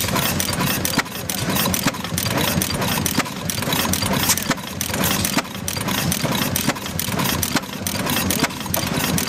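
Vintage stationary gas engine running, a steady chugging with frequent sharp clicks and snaps from its valve and ignition gear.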